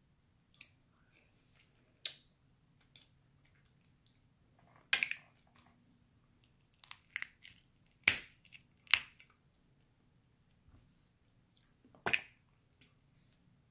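Crab leg shells being cracked and snapped open by hand: a handful of sharp, brittle cracks spread out with quiet between, the loudest about eight and nine seconds in.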